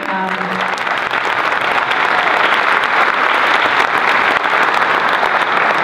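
Audience applauding: dense, steady clapping that swells slightly.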